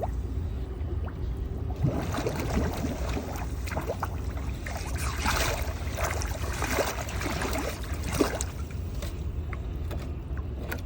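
Water sloshing and lapping against a boat hull at a dock, in irregular small splashes and gurgles, over a steady low rumble.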